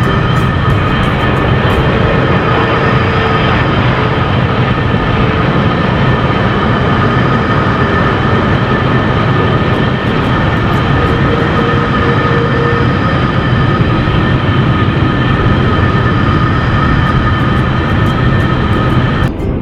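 Airplane engine running steadily, a loud roar with a high whine through it.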